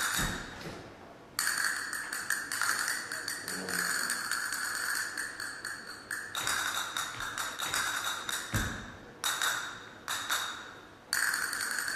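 Dance shoes tapping out rapid footwork on a stage floor, in quick runs of taps broken by three short pauses, with music.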